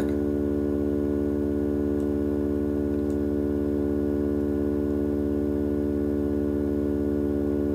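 A steady hum of several low held tones, never changing in pitch or loudness.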